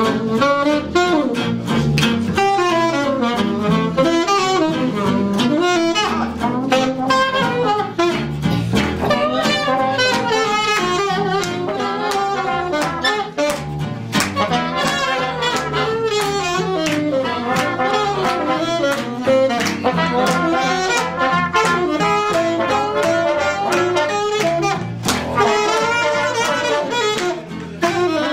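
Dixieland jazz band playing live: horn lines weave over a steady beat from the plucked rhythm section and string bass.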